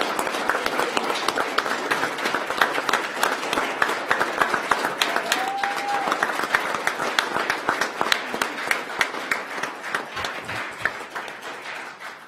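Audience applauding, thinning to scattered claps and dying away near the end.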